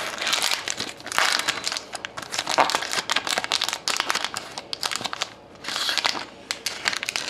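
Foil wrapper of a hockey card pack crinkling and tearing as it is peeled open by hand, in quick irregular crackles that ease off briefly about five and a half seconds in.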